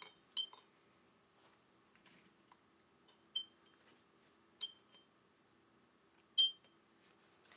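A paintbrush clinking against a glass water jar: about seven light, ringing taps, spaced irregularly.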